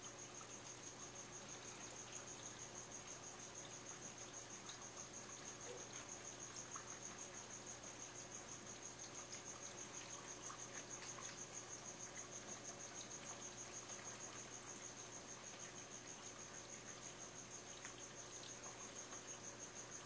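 Faint steady low hum of aquarium equipment running, under a continuous high, rapidly pulsing tone.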